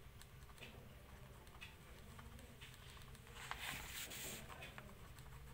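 Pen drawing on paper: faint scratching strokes and small taps, with a louder run of scratching about three and a half seconds in, over a low steady hum.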